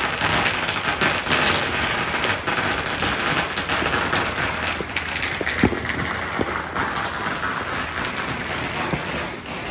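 Consumer fireworks going off, a dense run of pops and crackles in quick succession, with one louder bang a little past halfway.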